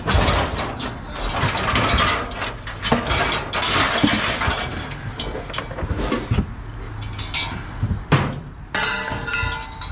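Pieces of scrap metal clanking and rattling as they are handled and sorted, with a sharp knock about eight seconds in.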